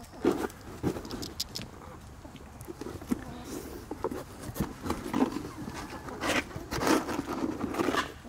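Backyard chickens pecking and scratching in straw-covered dirt: irregular rustling and tapping, with clusters of louder scuffs just after the start and again near the end.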